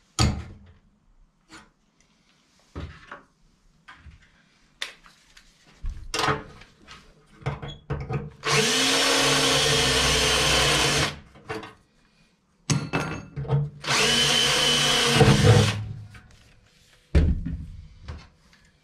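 DeWalt cordless drill drilling into a small metal bracket piece in two runs, the first about three seconds and the second about two, each spinning up quickly to a steady whine. Knocks and clicks from the parts being handled come before the runs and again near the end.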